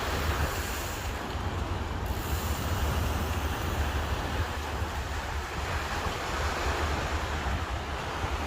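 Sea waves washing and breaking in a steady wash of surf, with wind buffeting the microphone as a low rumble underneath.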